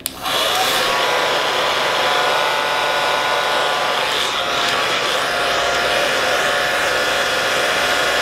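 Hand-held hair dryer running steadily on a low setting, blowing on a synthetic wig to dry hairspray; a rush of air with a faint steady motor whine. It starts abruptly right at the beginning.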